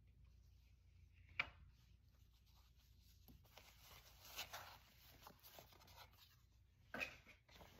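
Faint rustling as a silk hair wrap and a paper card are pulled out of a satin pouch, with a sharp click about a second and a half in and a brief louder rustle near the end.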